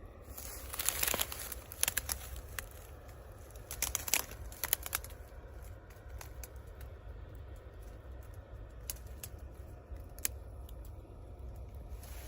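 Dry, standing wheat stalks rustling and crackling as they are brushed through. There are dense clusters of crackles about half a second in and again around four seconds in, then scattered single crackles.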